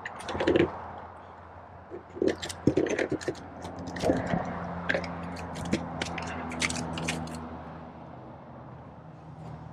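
A freshly caught sheepshead being held and handled on a hard plastic fish-measuring board: a run of irregular clicks, taps and scrapes that dies away after about seven and a half seconds.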